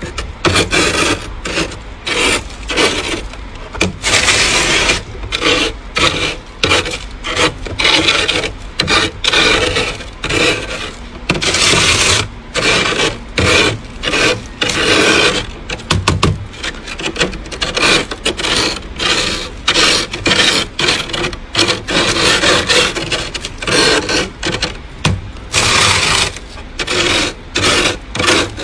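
Thick freezer frost being scraped off the inside of a freezer compartment with a small hand tool: quick repeated rasping strokes, a few a second, with a few longer unbroken scrapes.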